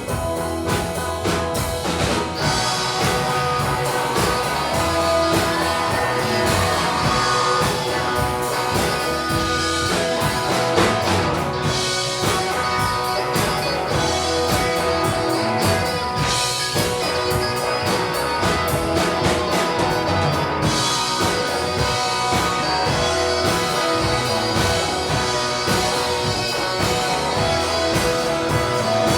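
Blues-rock band playing an instrumental passage with guitar and drum kit, after the singing has stopped.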